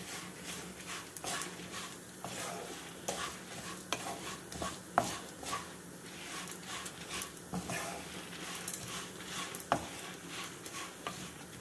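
Flat spatula stirring and scraping chana dal and dry red chillies around a nonstick kadai as they roast, in quick irregular strokes with the dal rattling against the pan. There are a couple of sharper knocks of the spatula on the pan, about halfway through and near the end. The roasting is kept moving so the dal turns golden without burning.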